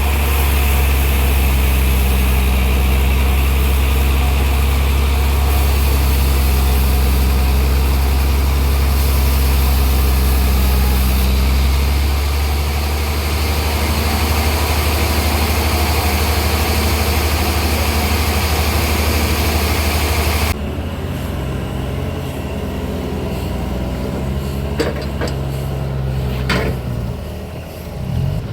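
Sawmill engine running steadily with a deep, even hum. About two-thirds of the way through the sound changes abruptly and drops a little, and a few short knocks follow near the end.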